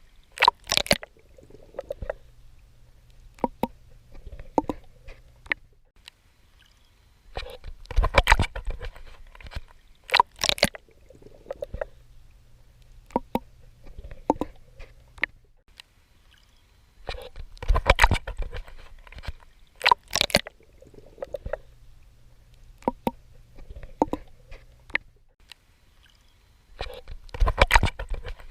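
Swimming in the ocean: bursts of splashing and sloshing water from swimming strokes come about every ten seconds, with quieter watery stretches and a faint low hum between them.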